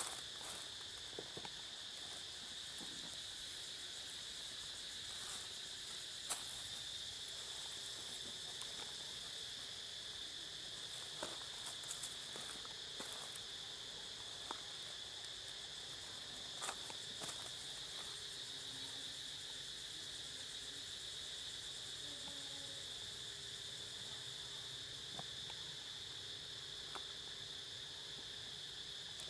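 Steady, high-pitched chorus of insects buzzing without a break, with a few faint scattered clicks.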